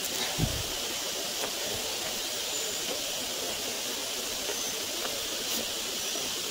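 Steady high hiss, with one low thump about half a second in and a few faint ticks.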